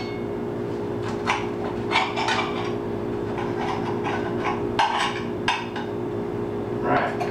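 Knife cutting through a BLT sandwich on a plate, with scattered short knocks and scrapes as the blade saws through and taps the plate. A steady low hum runs underneath.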